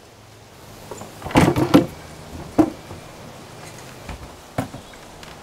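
A Boeing 727's passenger cabin door being unlatched and swung open from inside: a cluster of heavy metal clunks about a second and a half in, a sharp knock about a second later, and one smaller knock near the end.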